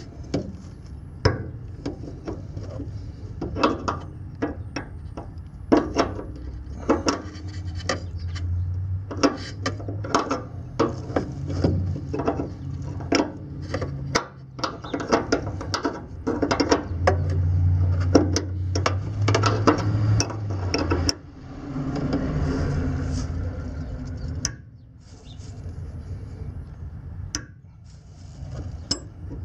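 Steel wrenches clinking and scraping on the fuel-line fitting of a fuel pump hanger as it is tightened, with many irregular metallic ticks. A low rumble comes and goes.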